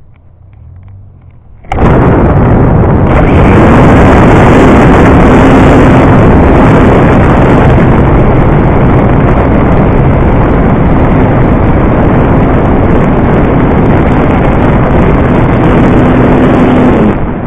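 Parkzone Radian glider's electric motor and folding propeller running at full power, heard from a camera right behind the prop: a loud, steady rush of prop wash on the microphone with a low hum. It starts suddenly about two seconds in and cuts off near the end when the motor is stopped.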